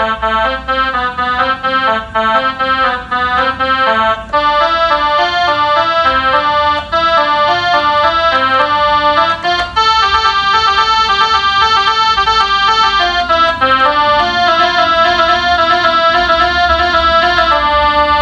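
A child playing a melodica (pianika) in chords, imitating the multi-tone Basuri bus horn tune: quick short notes for about the first four seconds, then long held chords that change every few seconds.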